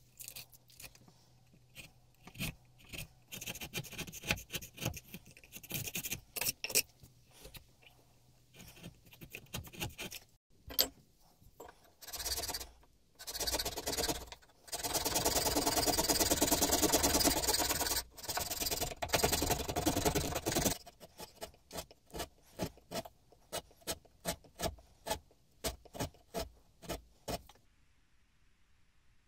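Steel chisel paring beech wood inside the throat of a wooden hand plane body: a string of short cutting strokes, then about eight seconds of continuous scraping of steel on the wood around the middle, then more short, evenly spaced strokes that stop near the end.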